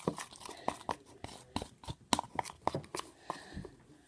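A utensil stirring glue in a bowl, giving irregular short clicks and taps against the bowl, a few a second.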